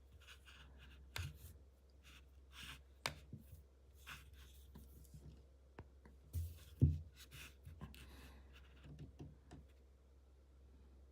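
Hands handling a small power bank and its packaging: scattered clicks and taps, with short bursts of rustling and scraping, over a low steady hum.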